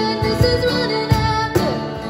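A woman singing a worship song over strummed acoustic guitar, with low thumps from a cajón keeping the beat.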